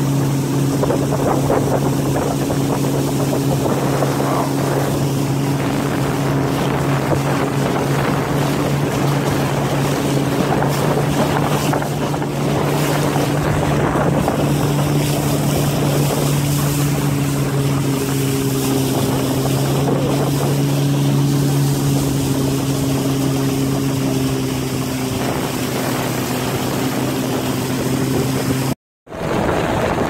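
Outboard motor of a small wooden river boat running steadily under way, with water rushing past the hull. The sound drops out for a split second near the end.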